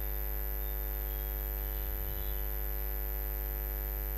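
Steady electrical mains hum with a long ladder of overtones, plus a thin high whine, carried on the recording's microphone chain.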